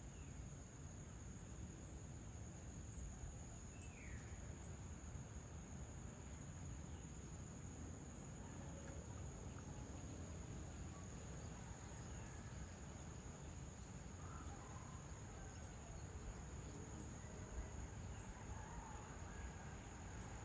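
Faint evening insect chorus: a steady, unbroken high-pitched drone, with a few faint short bird calls and a low background rumble.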